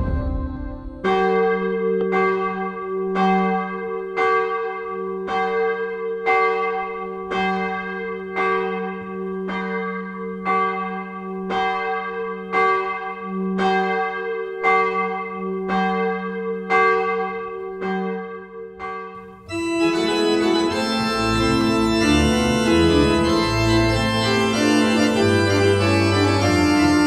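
Church bell tolling steadily, about one stroke a second, with the ring of the strokes overlapping. About twenty seconds in, the bell gives way to a pipe organ beginning to play full sustained chords with deep bass notes.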